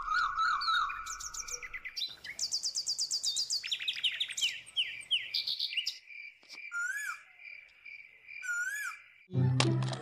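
Birds chirping and trilling in quick runs of rising and falling notes. Later a steady, evenly pulsing call repeats for about three seconds, with an occasional swooping note over it.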